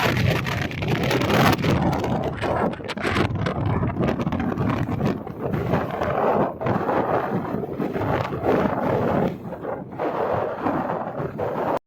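Heavy wind gusting, a loud rushing noise that swells and drops, with low rumble from the wind buffeting the microphone. It cuts off suddenly at the very end.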